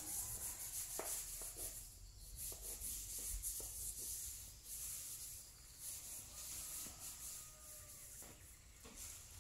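Soft rustling and scattered light clicks of cut grass being handled on gravel, over a steady high hiss.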